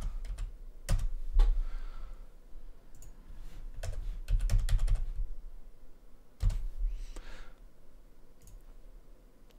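Computer keyboard and mouse being used: scattered sharp clicks and keystrokes, with a short quick run of typing about four seconds in.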